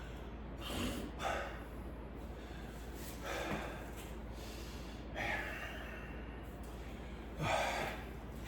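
A man breathing hard after a set of seated cable rows: about five heavy breaths a second or two apart, the last the loudest, as he catches his breath.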